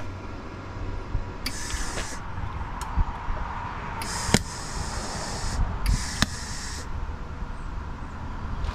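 Welder laying three short bursts of weld on thin sheet metal, each about a second long, with a few sharp clicks in between, as holes in a firewall are patched.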